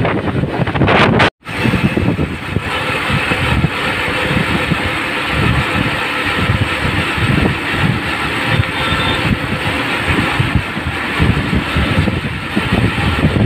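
Motorcycle riding at speed: wind buffeting the microphone over a steady rush of road and engine noise. The sound drops out completely for a moment about a second in.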